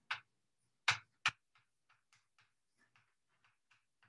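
Chalk writing on a blackboard: three sharper taps in the first second and a half, then a run of faint, short strokes, about three or four a second, as letters are written.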